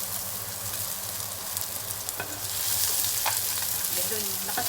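Garlic and ginger sizzling in hot cooking oil in a pan, stirred with a utensil that clicks against the pan a few times. The sizzle grows louder about halfway through as the garlic goes into the oil.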